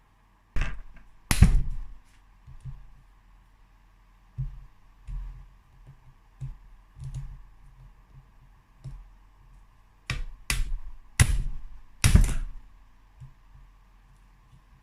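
Hammer blows on metal to loosen the crankcase bolts of a Yamaha two-stroke 125 engine: two sharp strikes about a second in, a cluster of four between about ten and twelve seconds, and softer knocks and clicks of tools between.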